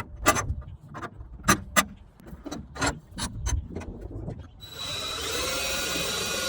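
Irregular knocks and clatter of wood and hardware being handled, then, about four and a half seconds in, a power drill starts and runs steadily.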